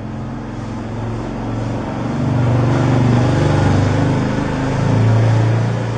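A motor vehicle's engine runs close by, getting louder from about two seconds in, peaking twice, then easing off near the end.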